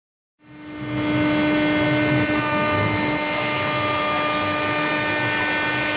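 CNC router spindle running and cutting parts out of a black plastic sheet: a steady machine whine with several held tones over a low rumble, which comes in about half a second in and then holds level.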